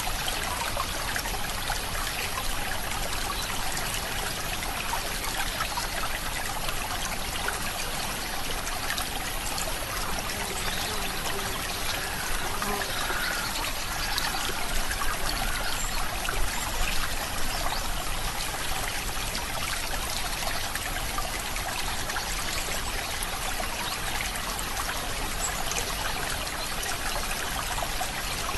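Water running steadily and trickling, like a small stream or brook flowing over stones.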